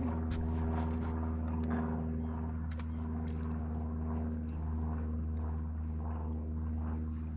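A steady, low engine drone that holds one pitch throughout, with a few faint clicks over it.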